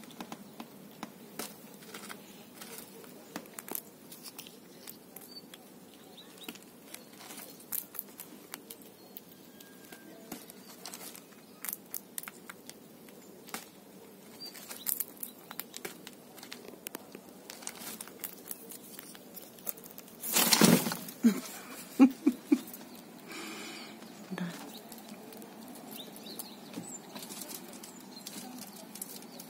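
Eurasian red squirrel husking sunflower seeds: a long run of small, sharp clicks and cracks as the shells are split. About two-thirds through come a few louder knocks and a rustle.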